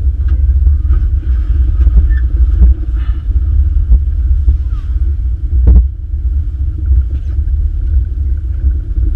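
Steady low rumble of a car on the road, engine and road noise, with a few faint clicks.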